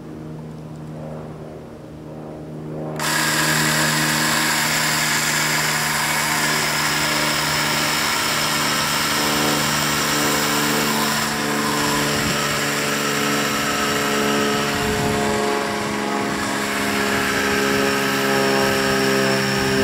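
Ryobi CS1800 18-volt cordless chainsaw with a 10-inch bar cutting into a tree stump: after a quieter steady hum, about three seconds in it jumps to a loud, dense whine of the chain biting through the wood, its pitch wavering through the cut.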